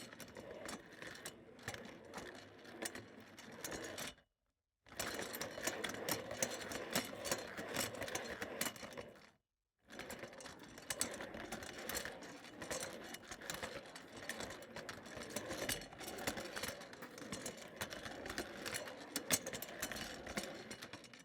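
Office chair rolling on its casters, a continuous rattling, clicking roll. It comes in three takes, with a brief silence between them about four seconds in and again near the ten-second mark.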